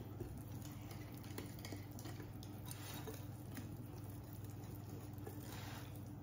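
Wire whisk stirring thick muffin batter in a glass bowl: soft, wet squishing with a few faint light ticks, over a steady low hum.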